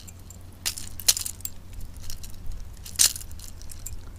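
Metallic clinking and rattling of a Megabass Oneten Magnum jerkbait's treble hooks as they are worked free from a small pike's jaw. A handful of sharp clinks, the loudest about one second in and again about three seconds in.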